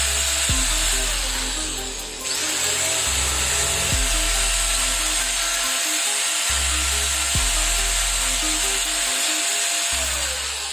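Bosch GWS 600 angle grinder running at full speed over background music with a steady beat. About two seconds in the motor briefly drops off and spins back up with a rising whine.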